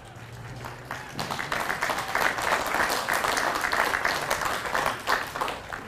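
Audience applauding, a dense patter of many hands clapping that builds up about a second in and stops fairly suddenly near the end.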